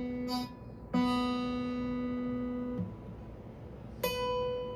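Acoustic guitar's B string, new phosphor bronze strings, plucked open and left to ring for about two seconds, then plucked an octave higher near the end: an intonation check comparing the open string with the twelfth-fret note, which comes out slightly sharp.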